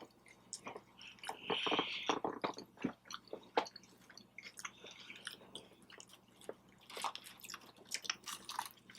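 Close-miked chewing and biting of soft, saucy food, irregular wet mouth clicks and smacks, with a short louder squishy bite about one and a half seconds in.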